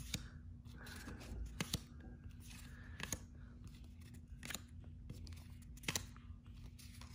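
Paper trading cards being handled one by one off a stack, a short sharp flick of card stock every second or so, over a faint steady hum.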